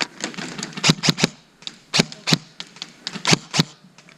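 Airsoft gunfire: about seven sharp single shots at irregular intervals, some in quick pairs.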